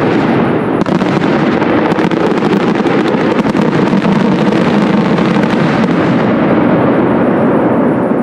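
Aerial fireworks display: a dense, continuous run of shell bursts with rapid bangs and crackling. The high crackle thins out after about six seconds as the bursts die away.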